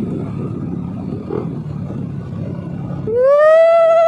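Yamaha NMAX 155 scooter running along the road with engine and wind rumble, then about three seconds in a loud, drawn-out wailing call starts, rising in pitch and then held.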